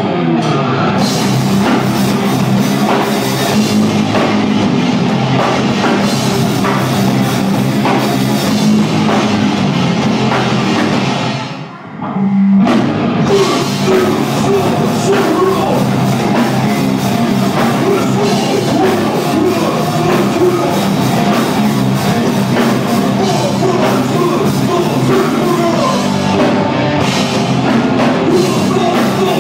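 A heavy rock band playing live through the PA: electric guitars and drum kit with a singer on the microphone. About twelve seconds in the music drops away for a moment, then the full band comes back in.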